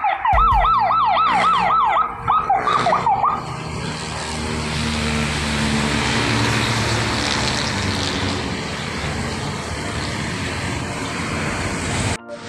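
A siren in a fast yelp, its pitch sweeping up and down about three times a second for the first three seconds, then giving way to a steady rush of traffic and road noise with a low engine hum.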